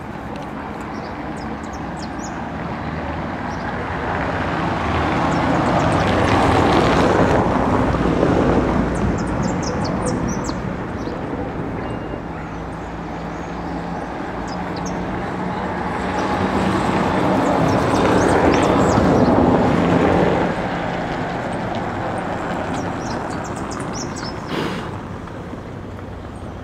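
Engine noise from something passing by, swelling and fading twice, each pass building over several seconds, with a short thump near the end.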